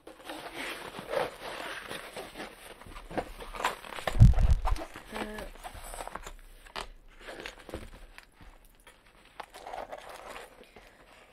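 Rustling and crinkling of a rolled diamond-painting canvas and its paper release cover as it is unrolled and smoothed flat by hand. A heavy low thump about four seconds in is the loudest sound.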